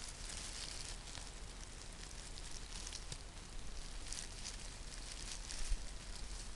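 Dry fallen leaves rustling and crackling now and then as a hand pushes through the forest litter, over a steady low rumble.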